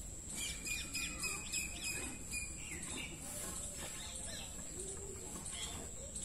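A bird chirping a quick series of notes from about half a second in until about two and a half seconds, over a steady background hum and a faint constant high whine.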